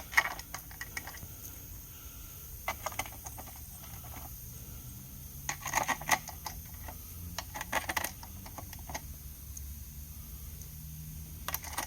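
Small metal bolts and hand tools being handled during transmission assembly: scattered light clicks and clinks that come in a few short clusters.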